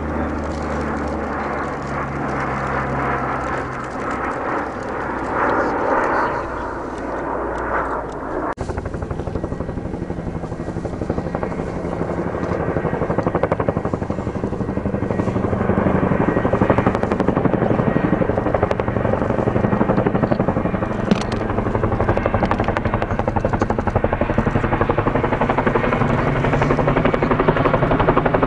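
Rapid beating of a CH-47 Chinook tandem-rotor helicopter's blades as it flies in, growing louder over several seconds and then staying loud and close. About eight seconds in the sound changes abruptly from a more mixed, distant drone to the clear rotor beat.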